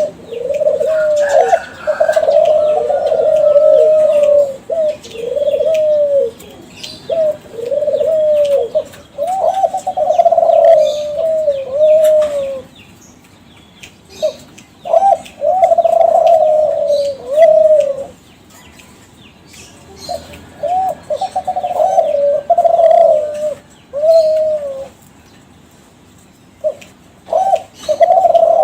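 Kelantan derkuku (spotted dove) cooing: phrases of repeated arched coo notes, broken by pauses of a couple of seconds. This is a champion-line song used as a lure call to get other doves singing.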